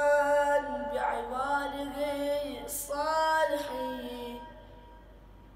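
A boy's voice chanting an Arabic Ramadan supplication in a slow, drawn-out melody, holding long notes, then falling away about four and a half seconds in.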